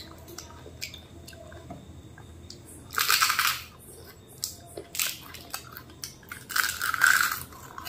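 Close-up mouth sounds of eating phuchka (pani puri) soaked in sour tamarind water: crisp, wet crunching and slurping. There is a loud burst about three seconds in, a few small clicks, then the loudest burst near the end as a whole puri goes into the mouth.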